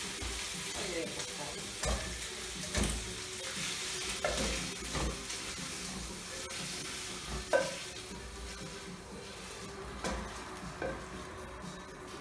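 Meat strips sizzling in hot oil in a frying pan as they are stirred and then scraped out into a pot, with a series of metal clinks and scrapes against the pan. The loudest clink comes about seven and a half seconds in. The sizzle dies down over the second half.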